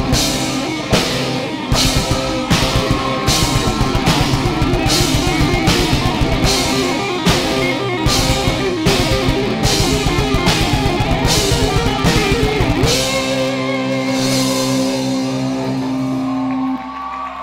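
Live rock band playing an instrumental passage: electric guitars, bass and drum kit, with cymbal hits on a steady beat. About thirteen seconds in, the drumming stops and a held chord rings out.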